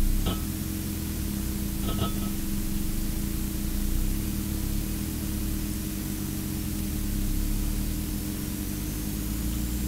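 Steady electrical hum and static hiss on the audio feed, with two short faint beeps, one just after the start and one about two seconds in.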